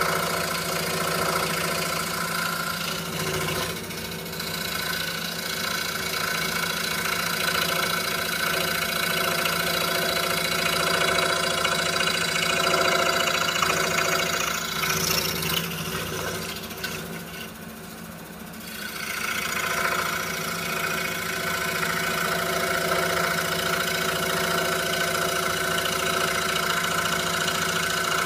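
A 26-inch RBI Hawk scroll saw running steadily, its 5-0 skip-tooth blade cutting Baltic birch plywood. The sound drops briefly about two-thirds of the way through, then comes back.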